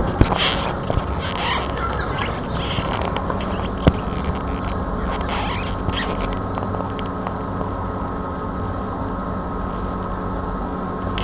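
Muffled rustling and scraping of a body-worn camera as it moves, with a sharp click about four seconds in, over a steady electrical hum; the rustling stops about halfway through and only the hum remains.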